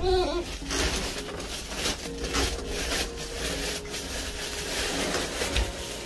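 Plastic bags and wrappers rustling and crinkling as a hand rummages through bagged garbage.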